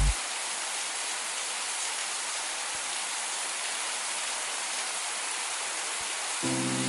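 Steady rain falling, an even hiss with no single drops standing out. Soft sustained music chords come back in near the end.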